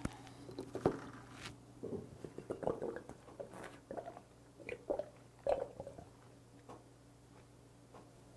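Soft gulping and swallowing as a full bottle of soju, upturned in the mouth, is drained in one go. Irregular gulps come about twice a second and stop about six seconds in, over a faint steady low hum.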